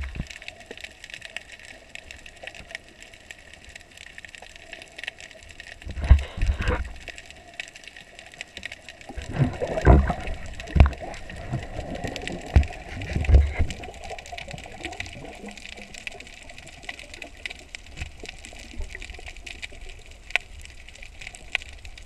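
Underwater audio from a snorkeler's camera: water rushing and bumping against the housing in two spells, about six seconds in and again from about ten to fourteen seconds, as the camera goes down from the surface. A steady faint crackle of fine clicks runs underneath.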